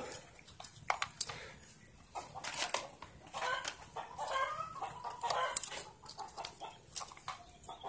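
Light clicks and rustles of a plastic wiring connector and wires being handled, with chickens clucking faintly in the background.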